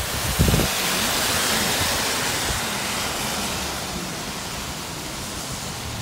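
Car tyres hissing on a wet road, heard from inside the moving car; the hiss swells about a second in and eases off near the end. A short low thump comes about half a second in.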